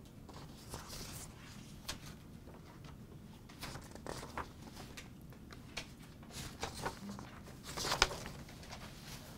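Quiet room tone with scattered small rustles and clicks, like handling noise, and one sharper click about eight seconds in.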